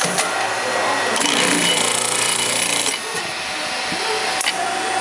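ATOLI TC-155 spin riveting machine running a riveting cycle on a car wiper pivot shaft, over the steady hum of its motor. A click at the start, then the spinning riveting head works the rivet for just under two seconds from about a second in, and a sharp click near the end.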